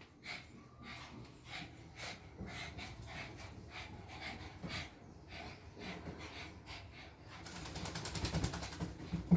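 Shih Tzus sniffing and breathing hard in short quick puffs, about two or three a second. Near the end there is a fast rasping rattle lasting about a second and a half, then a sharp knock.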